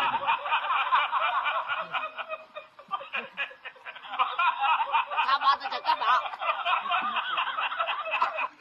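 Several people snickering and chuckling in a continuous run of laughter, thinning briefly about three seconds in and cutting off suddenly at the end.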